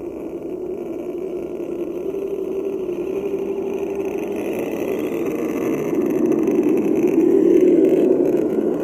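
Electric motors and gear trains of RC scale crawler trucks whining steadily as they drive, the whine wavering a little with throttle and growing louder towards the end.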